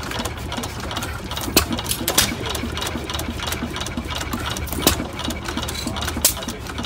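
Olds Type R stationary gas engine, fitted with a pancake magneto, running with a steady mechanical clatter and low rumble. A handful of sharp, louder reports come at uneven intervals over the running sound.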